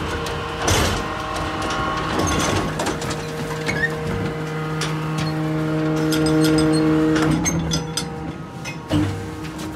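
Garbage truck's container lifter at work: a steady mechanical hum of the truck's engine and hydraulics, which stops about seven seconds in, with metal clanks and rattling as the waste container is tipped and lowered, and a heavy bang near the end.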